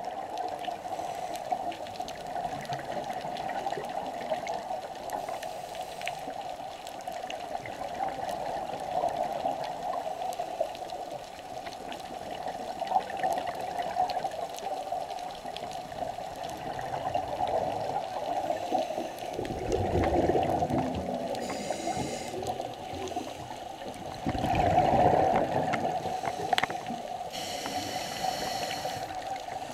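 Underwater ambience recorded by a diver's camera: a steady watery wash, with two louder gurgling surges from scuba divers' exhaled regulator bubbles about twenty and twenty-five seconds in.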